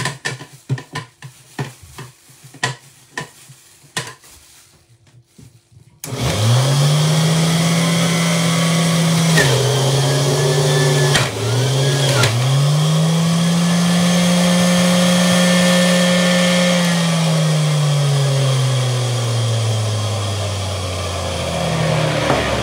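A few knocks and clicks, then about six seconds in a centrifugal juicer's electric motor starts with a quickly rising whine and runs at speed, dipping in pitch briefly twice as ginger goes through it. Near the end the motor winds down with a slowly falling hum.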